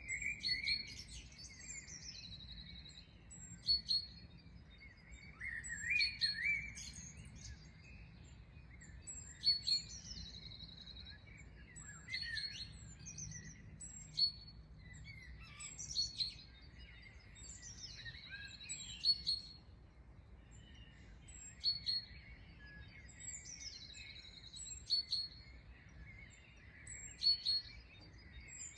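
Songbirds singing in an early-morning chorus. One phrase repeats every two to three seconds: a few sharp, high chirps, then a quick falling trill. Other lower chirps and warbles run beneath it.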